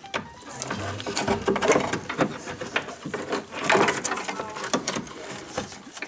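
Irregular metallic clicks and rattles of a car door lock mechanism being worked into place through the opening in a Range Rover Classic's inner door panel.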